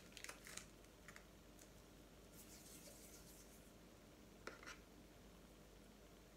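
Near silence: quiet room tone with a few faint clicks and rustles of hands working at a table, mostly in the first second, and another brief tick a little past the midpoint.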